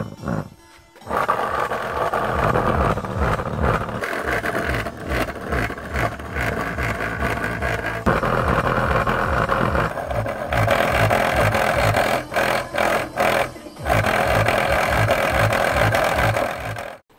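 Loud music with a pounding bass beat, cutting off abruptly near the end.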